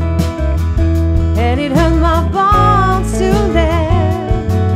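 Soul band playing: a woman's lead vocal holds wavering sung notes over strummed acoustic guitar, organ, bass guitar and drums keeping a steady beat.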